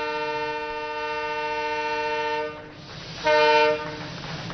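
Diesel locomotive's multi-tone air horn sounding one long blast of about three seconds, then a second, shorter and louder blast.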